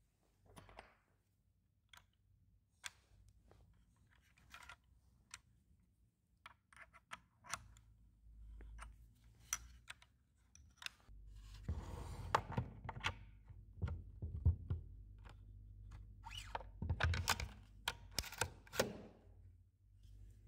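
Scattered sharp clicks and knocks of metal and plastic parts as a Festool Domino XL DF 700 joiner is handled and its cutter fitted by hand. From about halfway the handling gets busier, with rustling and a cluster of louder knocks.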